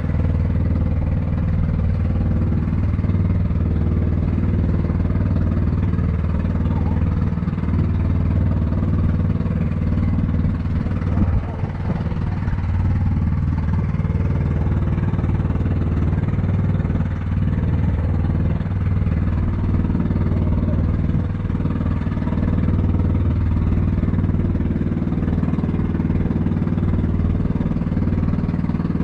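Engine of a motorized outrigger boat (bangka) running steadily under way, a constant low drone.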